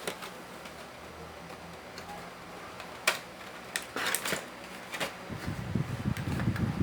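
Toy packaging being handled: a few sharp clicks and rustles, a cluster of them about four seconds in. A low rumble of handling noise sets in near the end.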